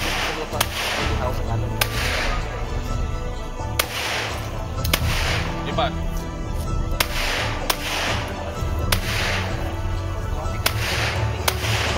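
Glock 17 pistol firing about a dozen shots at an uneven pace, several in quick pairs, each crack followed by a short echo. Music plays quietly underneath.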